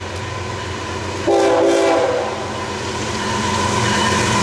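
Approaching BNSF diesel freight locomotives rumbling, with one short blast of the air horn about a second in: a chord of several notes held for under a second.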